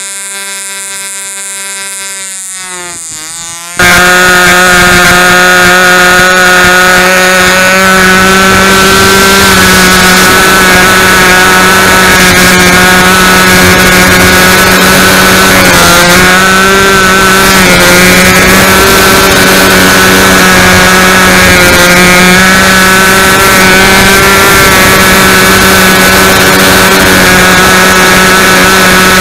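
Small two-stroke model airplane engine running at high speed on a control-line Ringmaster. For the first few seconds it is heard quieter from the ground and its pitch slides down; then it is heard very loud from on board the plane in flight, a steady high buzz with a few brief dips in pitch.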